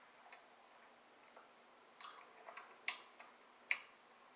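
Faint mouth clicks and smacks close to the microphone while eating, with two sharper clicks about three and three-and-a-half seconds in.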